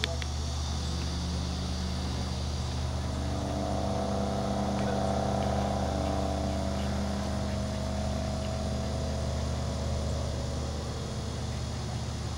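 A distant motor engine hum that swells and then fades over several seconds, over a steady low rumble.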